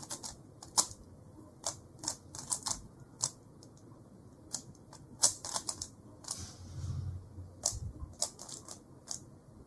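Rubik's cube layers being turned rapidly by hand: irregular plastic clicking, often in quick clusters of several turns.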